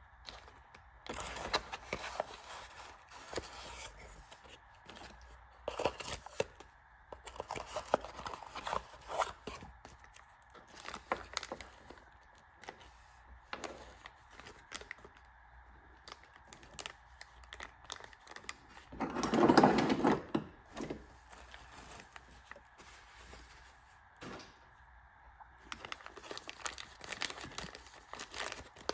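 Clear plastic bag crinkling and rustling as a new chainsaw piston is handled in it, with scattered light clicks and handling noises. A louder, lower burst lasting about a second comes roughly two-thirds of the way through.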